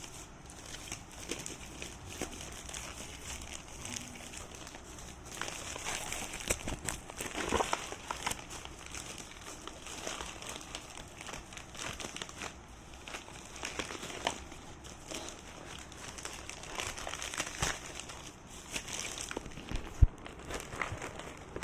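Packaging being handled and unwrapped during an unboxing: irregular crinkling and rustling with scattered small clicks, and a sharp knock near the end.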